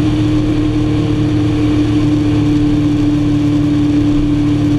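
Motorcycle engine running steadily at cruising speed, picked up by a camera mounted on the bike: an even drone with one strong, unchanging tone over a haze of road and wind noise.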